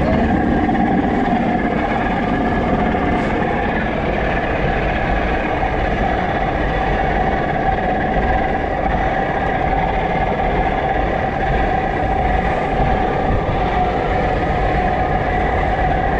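Fishing boat's diesel engine running steadily: an even drone with a constant tone on top.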